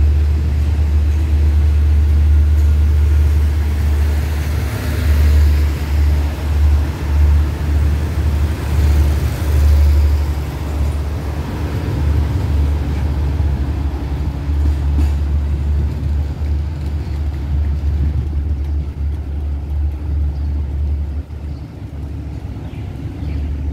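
A State Railway of Thailand passenger train's carriages roll past at low speed, wheels running on the rails with a heavy low rumble. The sound fades near the end as the last carriage clears.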